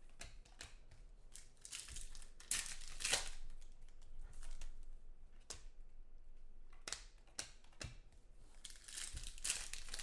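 Hands sliding and flipping glossy football trading cards, with crinkling of foil pack wrappers, in two louder rustling spells about two seconds in and near the end, and scattered light ticks of cards between them.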